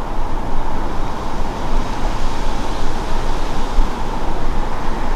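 Airbus Beluga XL's two Rolls-Royce Trent 700 turbofans heard from cruise altitude as a steady, distant jet rumble.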